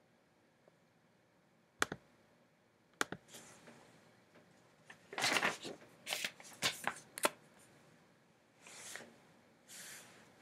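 Quiet handling noises at a desk: two sharp clicks, then a flurry of rustling and clicking about five to seven seconds in, and two soft rustles near the end.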